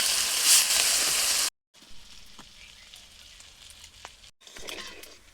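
Loud sizzling of food frying in hot oil, cutting off abruptly about a second and a half in; after that a much fainter hiss with a few light clicks.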